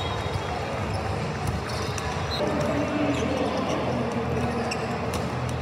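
Indoor volleyball rally: the ball struck a few times as sharp knocks, with players moving on the court, over the steady din of a large hall full of other matches and spectators.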